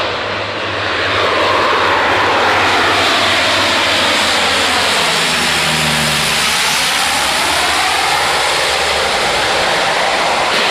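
Canadair twin-engine firefighting water bomber passing low overhead, its engines loud throughout, with the sound sweeping down in pitch toward the closest point about halfway through and back up as it goes away.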